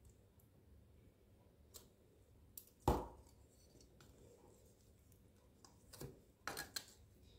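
A few scattered knocks and clicks: one stronger knock about three seconds in, then a quick group of three or four near the end.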